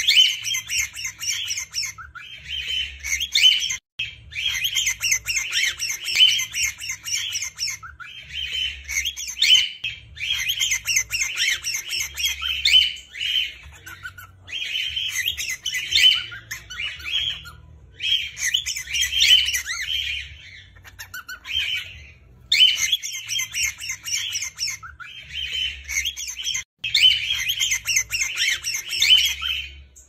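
A flock of cockatiels chattering and squawking in fast, high chirps. The calls come in runs of a few seconds, broken by short pauses.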